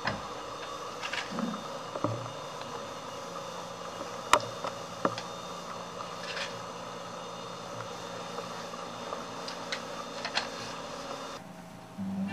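Steady room hum with a few scattered clicks and knocks, the sharpest about four seconds in.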